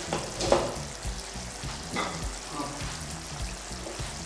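Thick chicken curry gravy simmering and bubbling in an open non-stick pan on low flame, at the end of its cooking. A steady soft bubbling, with a couple of sharper pops about half a second and two seconds in.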